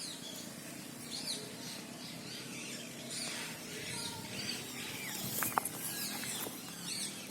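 Small birds chirping and twittering, many short high calls overlapping throughout, with one sharp click about five and a half seconds in.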